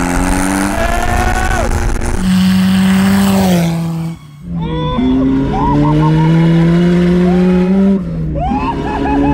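Mazda Miata's four-cylinder engine revving hard as the car is driven on ice on bolt-studded tires, briefly dropping off about four seconds in and again near the end before picking straight back up.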